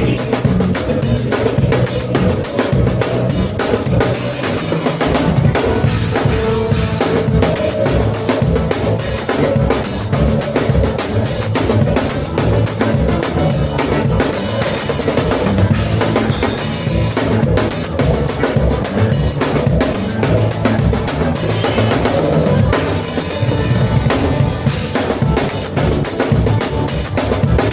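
Live band playing a gaúcho dance tune: a drum kit keeps a steady, driving beat under sustained button-accordion (gaita) melody.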